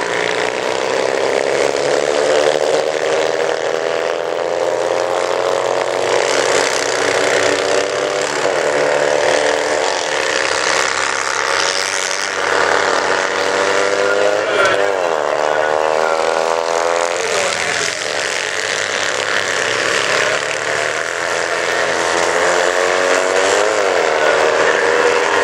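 Several kart-cross karts powered by Citroën 2CV 602 cc flat-twin engines racing on a dirt track. The engines rise and fall in pitch as the karts accelerate and back off through the bends, with a climbing rev run about fourteen seconds in and another near the end.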